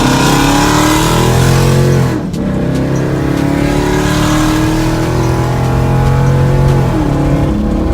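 Car engine accelerating hard, its pitch rising as it revs up through the gears, with a sudden drop at a gear change about two seconds in and another near the end.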